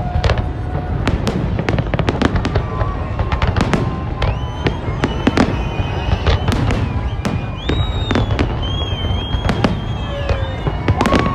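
Aerial fireworks bursting in quick, irregular succession: many sharp bangs over a constant low rumble. High wavering whistling tones run through the middle, and a long falling tone comes near the end.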